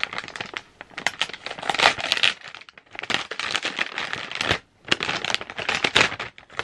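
Thin plastic mailing bag being handled and pulled open, crinkling and rustling in irregular bursts with two brief pauses.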